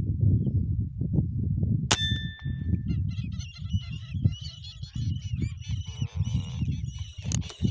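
A flock of lesser whistling ducks calling: many high, whistled calls overlapping from about three seconds in. Earlier there is a single sharp metallic ping, and a low rumbling noise runs underneath throughout.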